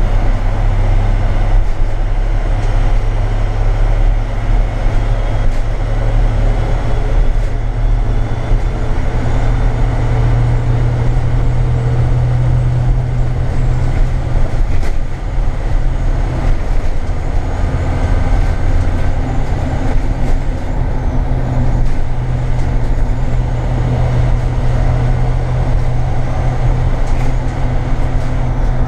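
Inside the cab of a 2006 IC CE200 school bus cruising on the highway: its VT365 V8 turbo-diesel runs steadily under load, over road and tyre noise, with a few light cabin rattles.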